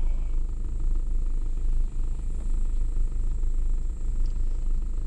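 Car engine idling, a steady low rumble heard inside the cabin.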